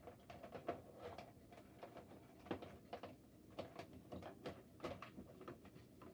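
Faint, irregular light clicks and taps, a few each second.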